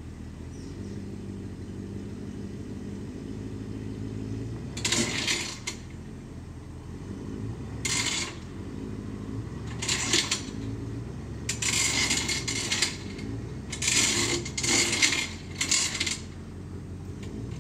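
An engine running at a steady low idle, with about six short bursts of metallic rattling and clinking over it.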